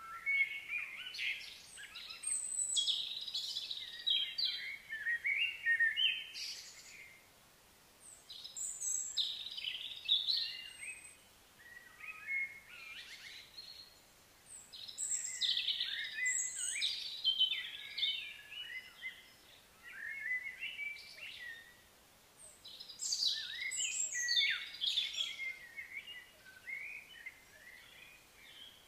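A songbird singing in bouts of quick, high chirps and warbling notes, each bout lasting a few seconds with short pauses between.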